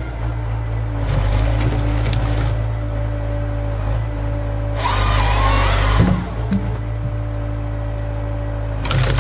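Tractor-mounted Hypro 755 log processor at work: the tractor engine drives it with a steady drone. A louder, harsher stretch of about a second comes some five seconds in, and another starts near the end.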